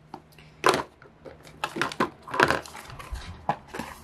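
Plastic bottles and tubes of skin and hair products knocking and clattering together as they are rummaged and moved about in a plastic storage bin: a series of short, sharp knocks.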